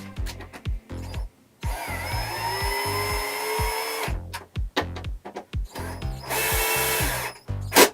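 A handheld power tool runs twice over background music with a steady beat: once for about two and a half seconds, its whine dipping as it starts and then steadying, and again for about a second near the end. A sharp click comes just before the end.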